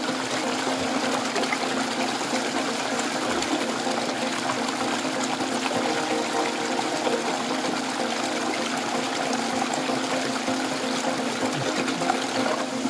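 Shallow stream water running steadily over rocks, with hands splashing and working among the stones in the current.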